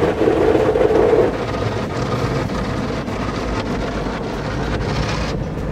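Automatic car wash heard from inside the car: rotating brushes scrubbing and water spraying against the body and windows, a loud steady rumble and swish. A higher hiss builds and then cuts off suddenly near the end.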